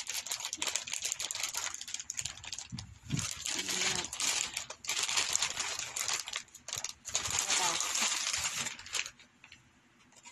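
Plastic wrapping on a new laptop crinkling and crackling as it is handled and pulled off, a dense run of rustles with short breaks that stops about nine seconds in.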